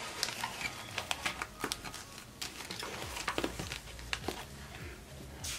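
Paper and glossy sticker sheets rustling and crinkling, with scattered light clicks and taps, as a disc-bound sticker book is leafed through and moved.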